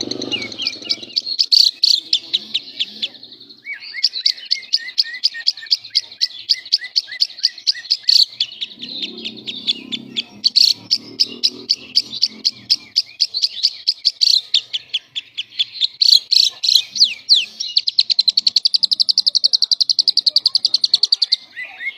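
Lovebird singing in the gacor 'semi konslet' style: a long, unbroken stream of rapid, chattering chirps that speeds up into a fast, even trill near the end.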